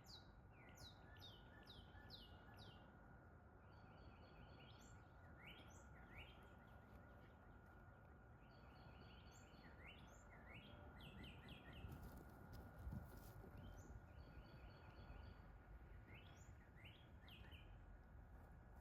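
Songbirds singing faintly: phrases of quick, sweeping whistled notes repeated every few seconds, over a low, even background rumble.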